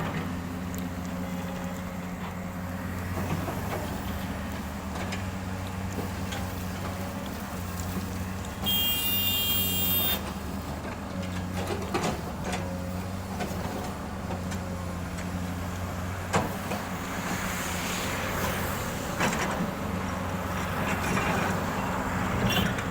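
Excavator's diesel engine running steadily while it digs and loads a truck, with a few sharp knocks in the second half. A loud, high-pitched horn sounds for about a second and a half near the middle.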